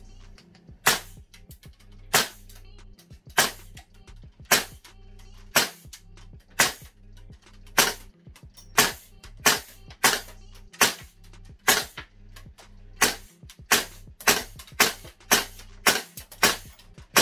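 VFC HK416 A5 gas blowback airsoft rifle firing single shots, each a sharp crack with the blowback kick. The shots come about one a second at first, then about two a second from around nine seconds in.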